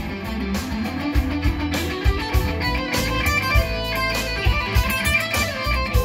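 Gretsch Players Edition Jet BT electric guitar with a flame maple top, played amplified: a busy run of quickly picked notes and chords.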